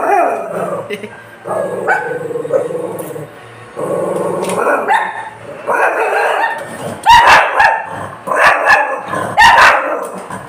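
Dog barking: a run of loud, short barks in the last few seconds, after quieter barks and yips.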